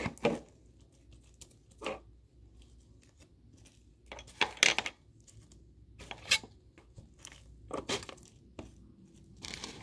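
Fluffy slime being stretched and squeezed by hand, giving short, irregular tearing and squishing sounds.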